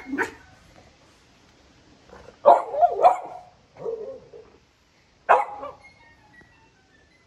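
Small dog barking, about five short barks spaced out: one right at the start, a louder pair around two and a half to three seconds in, one near four seconds and another just past five seconds.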